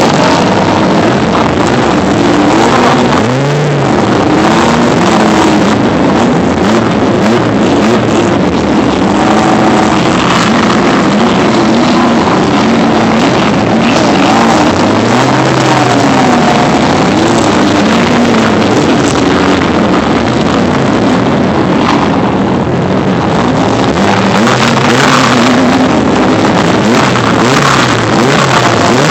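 Off-road race truck engine running hard and loud, its pitch rising and falling again and again as the throttle is worked over rough ground.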